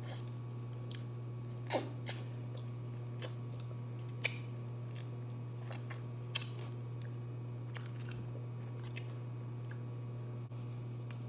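Close-miked eating mouth sounds: chewing, and a handful of sharp wet smacks and clicks between about two and six and a half seconds in as sauce is licked off the fingers, over a steady low electrical hum.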